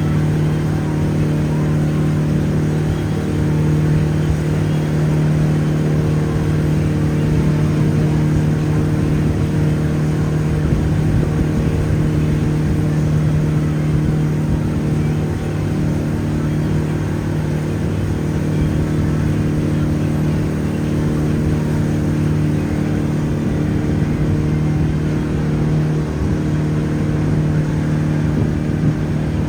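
Riverboat's engine running steadily under way, a constant low drone that holds the same pitch throughout.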